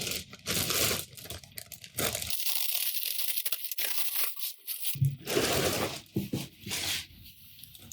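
Plastic bag crinkling and rustling in irregular bursts as it is pulled off a 3D printer.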